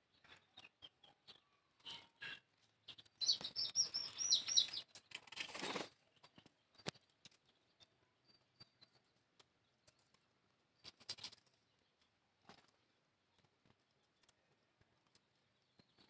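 Newly hatched chick peeping in the nest: a quick run of about six high, thin cheeps a few seconds in, followed by a short rustle. After that only faint scattered rustles and ticks.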